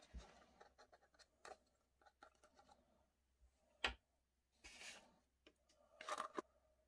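Thin plastic deli cups and tubs being handled, with small clicks and scratchy rustles. A sharp plastic click comes about four seconds in, and there are two brief rustling bursts after it.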